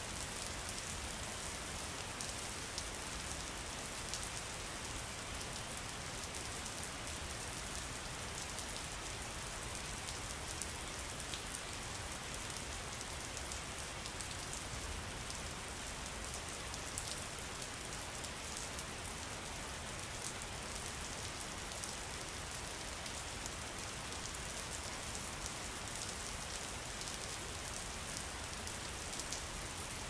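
Steady rain falling, a constant hiss with a fine patter of individual drops.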